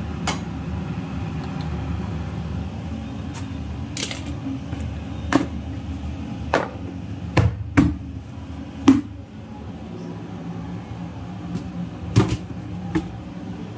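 Kitchen utensils and containers knocking and clinking as they are handled and set down on the counter: about a dozen short knocks, the loudest two near the middle. Under them runs a steady low hum that drops a little about eight seconds in.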